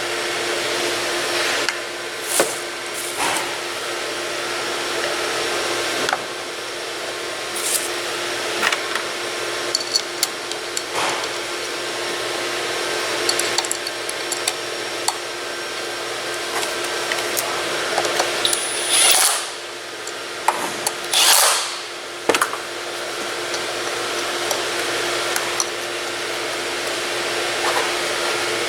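Intermittent clicks and knocks of hands seating new ignition coils and fastening their bolt and clip on a car engine, over a steady fan-like whir with a constant hum.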